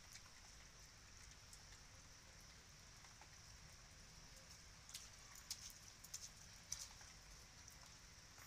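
Faint light rain: a steady soft hiss, with a handful of sharp ticks of drops landing in the second half.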